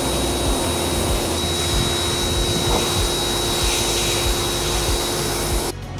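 Electric pressure washer running, its water jet spraying onto plastic cab trim panels: a steady hiss over a constant motor hum and high whine, cutting off abruptly near the end.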